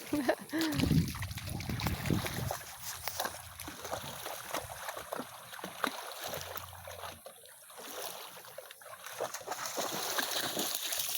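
Irregular splashing and lapping of water. There is a brief wavering pitched sound in the first second.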